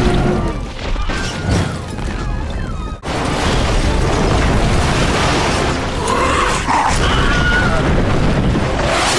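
Film crash and explosion sound effects with the Wilhelm scream, the stock man's scream, heard in them. About three seconds in the sound cuts abruptly to a louder, steadier blast-and-debris rumble in which a short cry rises and falls.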